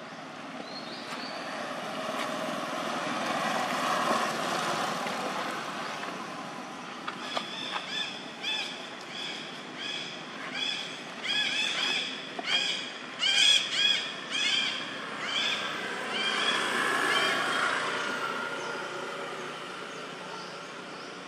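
A run of short, high-pitched animal calls, roughly two a second, that grows louder and then fades. Before and after it, a vehicle passes, swelling and dying away.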